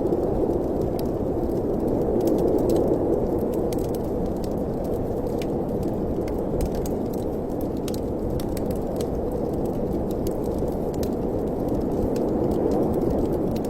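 Steady wind blowing with a dense, even rush, over irregular sharp crackles and pops of a wood fire burning in a fireplace.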